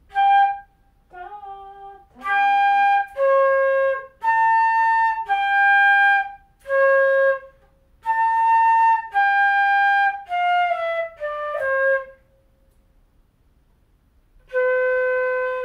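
Concert flute playing a slow melody of about a dozen separate notes. After a pause of two or three seconds near the end, it plays one long, lower held note.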